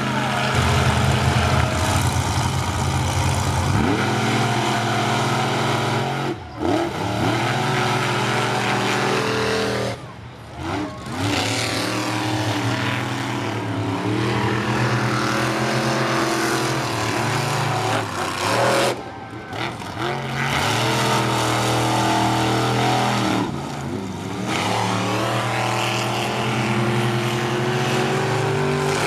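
Monster truck engines running with a steady rumble, revved up and down now and then.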